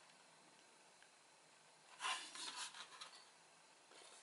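Handling noise: the subwoofer's amplifier module, with its plastic back panel and aluminium heatsink, rubs and scrapes briefly in the hands about two seconds in. Otherwise near silence.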